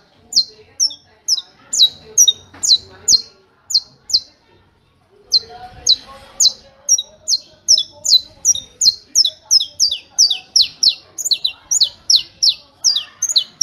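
Saffron finch (canário-da-terra) singing its 'martelo' (hammer) song: a long series of sharp, high, downward-slurred notes repeated about two to three a second. The series breaks off briefly around four seconds in, then picks up again faster, at about four notes a second.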